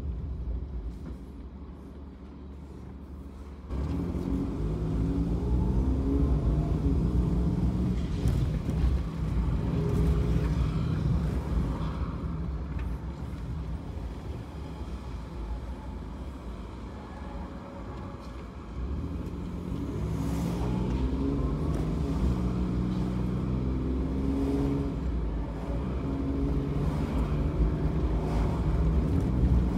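Suzuki Every kei van's small three-cylinder engine and road noise, heard from inside the cabin while driving. It is quieter for the first few seconds, then the engine note rises about four seconds in, settles, and rises again around twenty seconds in.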